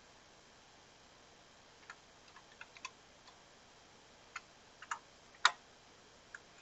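Sparse, irregular light clicks of a computer keyboard and mouse, starting about two seconds in, with one louder click near the end.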